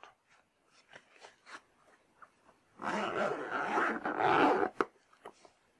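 Camera backpack being handled: a few light clicks, then about two seconds of rough rustling and rasping of the bag's fabric near the middle as its side pocket is closed and the bag is shifted.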